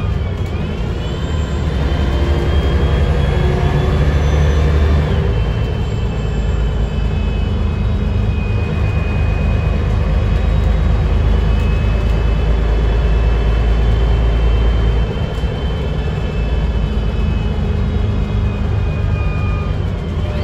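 Mercedes-Benz O405NH city bus heard from inside the cabin while driving: a low engine rumble under a driveline whine. The whine climbs in pitch through the first five seconds, then drops sharply at a gear change. The bus settles into a steady cruise, and the rumble eases off about fifteen seconds in.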